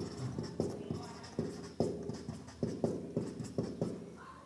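Marker pen writing on a whiteboard: a run of light taps and strokes, about three a second, that stop shortly before the end.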